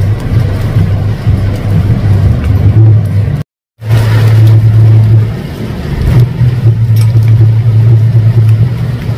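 Amplified bass guitar from a neighbouring church concert hall, heard from outside as a loud, low droning hum of held notes, each lasting a second or more. The sound cuts out completely for a moment about three and a half seconds in.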